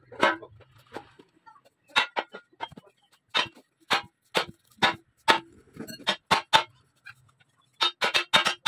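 Hammer blows on a metal boat propeller blade, reshaping its bent curvature, the cause of the propeller vibrating at low revs. Sharp repeated strikes, about two a second with a pause, then a quick run of blows near the end.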